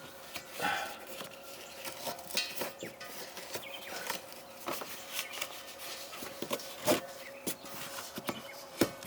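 Scattered clicks, taps and knocks of a 7-gallon LP propane tank and its hose fitting being handled and worked by hand during a tank swap, over a faint steady hum.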